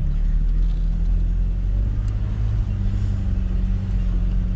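Truck engine and drivetrain heard from inside the cab while driving on a dirt trail: a steady low hum.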